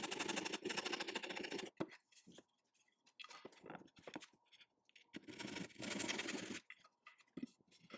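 Wood being worked by hand or with a small tool: two stretches of rapid scratching and rubbing, the first stopping a little under two seconds in and the second starting about five seconds in, with small clicks and knocks between them.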